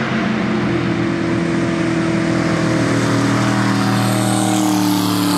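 V8 race ski boat engine running at speed: a loud, steady engine note.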